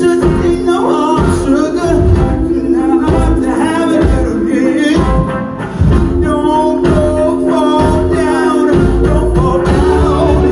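Live band performing a soul-blues song: a female lead voice sings over electric guitar, held low notes and a steady drum beat, recorded from the audience.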